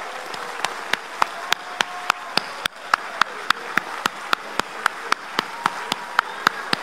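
Audience in a large hall applauding, the clapping falling into a steady rhythm in unison at about three claps a second.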